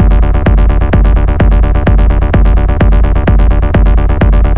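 Electronic dance track (techno) with a four-on-the-floor kick drum about two beats a second under a steady, sustained synthesizer chord.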